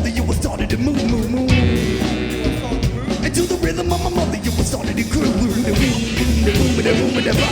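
Rap-rock band playing live in an instrumental passage, with a pitched melody line over a steady low bass.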